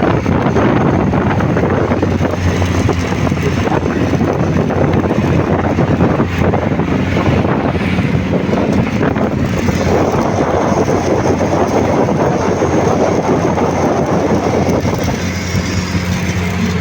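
Stick welding arc crackling and sizzling steadily while a bead is laid on thick steel, over a low steady hum.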